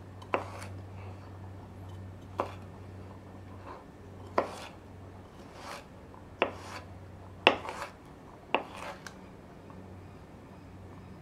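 Knife chopping on a cutting board: about six separate sharp knocks, a second or two apart.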